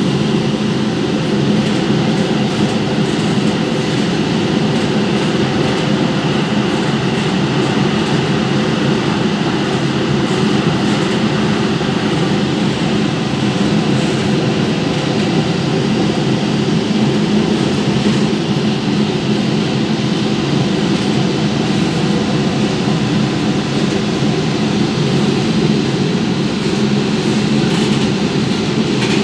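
Kolkata Metro train running steadily along an elevated viaduct, heard from inside the carriage: an even, unbroken running noise of wheels and running gear on the track, loud and low-pitched, with no breaks or changes.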